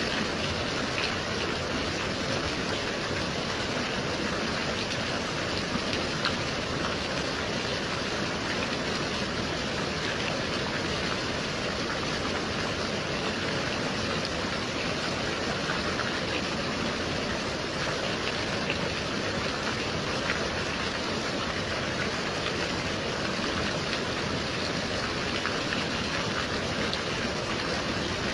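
Gentle rain falling steadily, an even hiss with faint scattered drop ticks.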